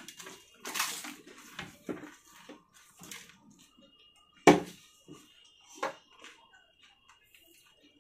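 Fuchka (pani puri) being eaten: irregular wet bursts of crunching and slurping from the water-filled shells, with one sharp clack about four and a half seconds in.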